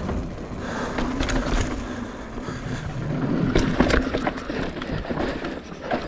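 Mountain bike riding down a dirt trail: tyres rolling over dirt and rocks, with the chain and frame rattling and clicking over the bumps.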